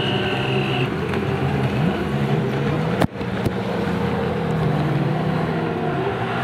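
Engines of racing jet skis (personal watercraft) running hard at speed, the pitch of several overlapping engines rising and falling as the riders throttle through the turns. The sound breaks off abruptly for a moment about three seconds in.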